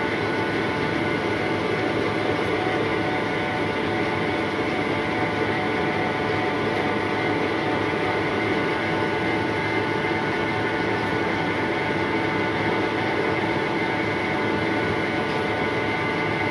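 Rice seed sorting machine running steadily: a continuous motor hum with several fixed tones over a constant rattle of rice grains on its sheet-metal tray.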